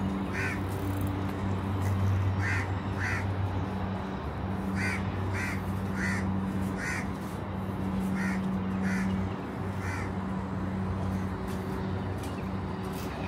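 A bird calling in short, harsh calls that come in clusters of two to four every few seconds, over a steady low hum.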